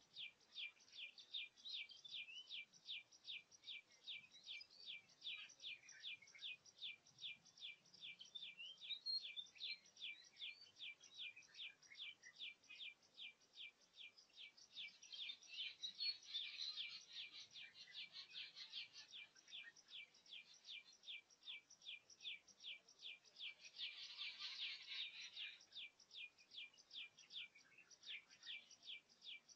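Faint outdoor birdsong: a short high note repeated very evenly, about three times a second, with other birds' chirps coming and going over it, busiest around the middle and again a little before the end.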